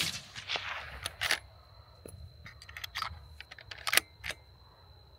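Echo of a suppressed 6.5 Creedmoor rifle shot, fired through a SilencerCo Harvester Evo, dying away over the first second. It is followed by several clusters of sharp metallic clicks and clacks as the bolt is worked to eject the spent case and chamber the next round.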